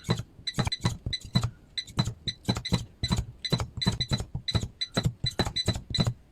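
Battery spot welder joining connecting strips to lithium-ion cells, firing about three welds a second; each weld is a short sharp snap with a brief high beep.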